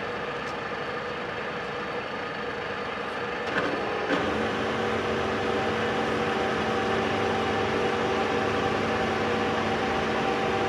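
TOS FA5V heavy vertical milling machine's knee and table traversing upward under power, running with a steady mechanical gear hum. A clunk about four seconds in, as the rapid traverse engages, after which the running is a little louder with several steady tones.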